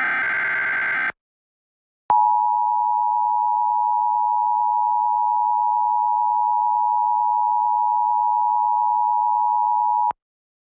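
Emergency Alert System test. It opens with the end of a SAME header data burst, a buzzy digital warble lasting about a second. After a second's pause comes the EAS attention signal: a steady two-tone alert held for about eight seconds, which cuts off suddenly. The tone marks that an emergency broadcast message follows.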